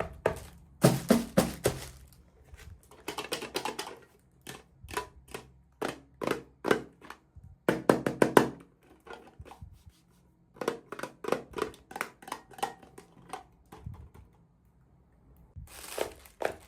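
Rapid clicks and taps of small plastic pieces and packaging being handled, in quick runs with short pauses between them.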